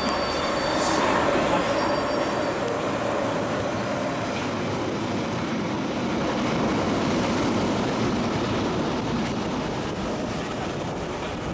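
A London Underground 1973 Tube Stock train on the Piccadilly Line running through the station without stopping at about 30 mph: a loud, steady rumble of wheels on rail. Thin, high-pitched wheel squeals sound in the first couple of seconds.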